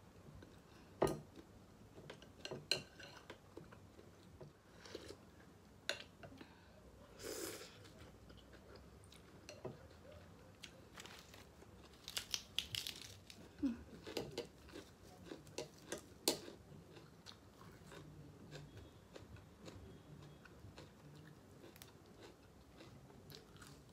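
Close-up chewing of pho noodles and meatballs, with scattered sharp clicks and a few short louder noisy sounds in between.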